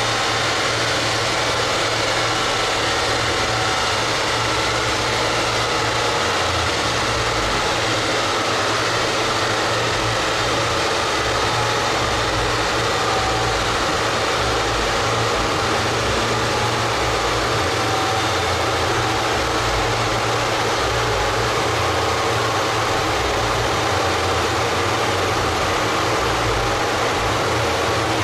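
Large rolling-road cooling fan blowing air at the car in a steady, even drone, with no revving.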